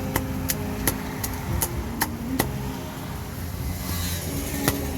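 A cleaver chopping on a chopping block: about eight quick, even strikes in the first two and a half seconds, then a single strike near the end, over a steady low rumble.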